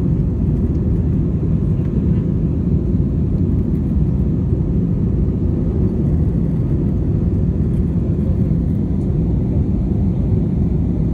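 Steady low rumble of a jet airliner's engines and rushing air, heard inside the passenger cabin during the climb after takeoff.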